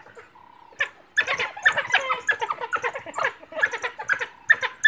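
African wild dogs giving rapid, high-pitched squeaky twittering calls, many short chirps a second, starting about a second in.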